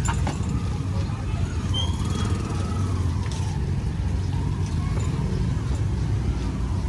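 Busy market street ambience: a steady low vehicle rumble with faint voices of people.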